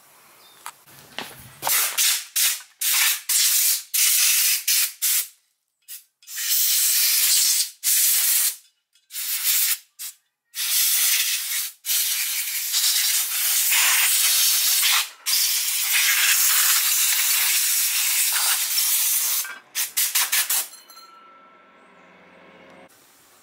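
Compressed-air blow gun blasting out the nooks and crannies of an aluminium engine case: a string of short hissing bursts, then several long blasts lasting a few seconds each, ending with a few quick bursts near the end.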